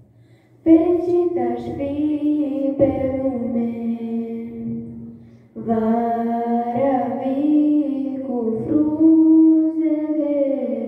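A girl and a boy singing a folk song together into microphones, in long drawn-out notes. One phrase starts just under a second in, and a second phrase starts about halfway through after a brief break.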